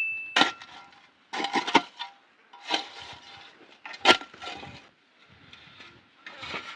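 Kitchenware being handled: irregular knocks and clatters of pots, utensils and wood, about six separate strikes, some with a brief metallic ring.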